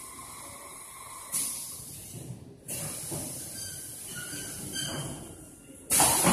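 20-litre water-jar filling machine hissing in spells. A hiss starts sharply about a second in, breaks off briefly in the middle and resumes, and a louder hiss starts just before the end.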